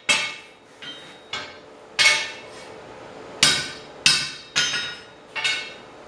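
Hand hammer forging steel plate on an anvil: about eight ringing metal blows, irregularly spaced, with a few lighter taps among the heavier strikes.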